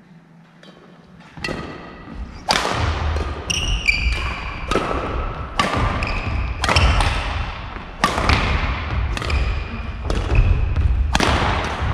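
A badminton singles rally: shuttlecock struck back and forth by rackets, about a dozen sharp hits roughly a second apart, starting about a second and a half in. Footfalls thud on the wooden court floor between hits, and the hall echoes.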